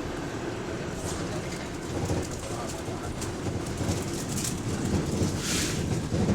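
Bus cabin noise while running: a steady engine and road rumble with loose rattles, and a short sharp hiss of compressed air about five and a half seconds in.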